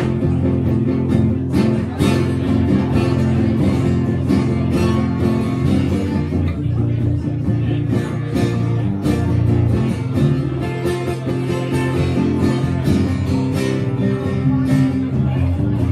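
Two acoustic guitars playing a tune together live, a steady strummed rhythm with ringing chords.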